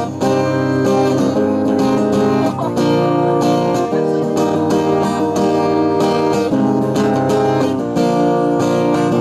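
Acoustic guitar strummed in steady chords: an instrumental passage of a folk-pop song with no singing.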